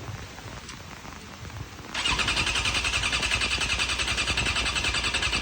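Suzuki 650 motorcycle's electric starter cranking the engine, starting about two seconds in, with a rapid, even pulsing beat; the engine turns over but does not fire, the crank-no-start fault that new fuel pump, tilt sensor, crank position sensor and plugs have not cured.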